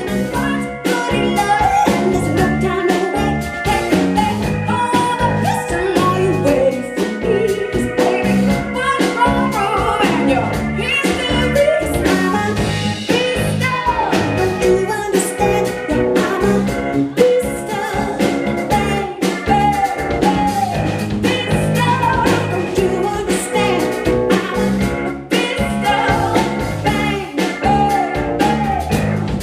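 Live band music: an instrumental stretch of an upbeat jazz-pop song, a melodic lead line bending over a band with a steady beat.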